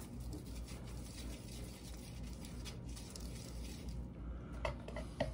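PVC cement dauber brushed around the inside of a PVC drain pipe: faint wet rubbing and dabbing, with a couple of small clicks near the end.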